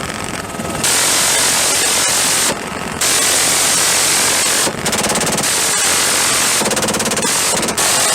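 M134 minigun, a 7.62 mm six-barrel rotary machine gun, firing long bursts as a continuous, very rapid rattle. It breaks off briefly near the start and again at about two and a half seconds.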